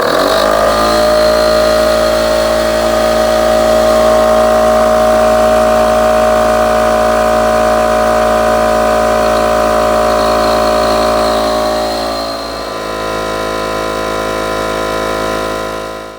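Kobalt 20-gallon oil-free air compressor starting and running as it pumps up its tank: a loud, steady motor-and-pump drone with a pitched whine. It drops slightly in level about twelve seconds in and stops near the end as the tank reaches full pressure.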